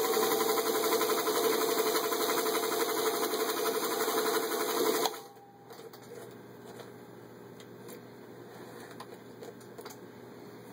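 White 1964 Singer 221K Featherweight sewing machine running at speed, stitching through a couple of layers of cotton, with a fast, even rhythm. It stops abruptly about five seconds in, and quieter handling clicks follow.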